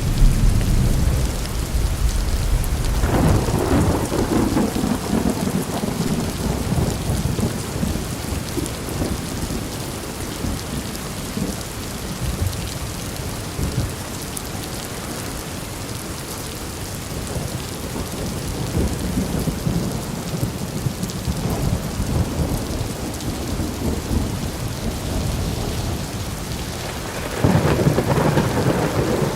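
Thunderstorm: steady rain hissing, with rolling thunder rumbling low at the start, swelling again about three seconds in and fading over several seconds, then a louder roll near the end.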